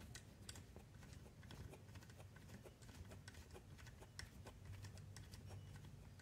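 Faint, irregular small clicks and ticks of a hand hex driver turning a small steel hex-head screw that fastens the steering arm to an RC car's steering servo, over a low steady hum.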